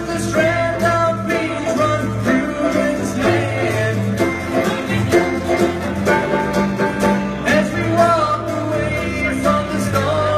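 A live band playing a folk-rock song on guitar, banjo and bass guitar, with a man singing.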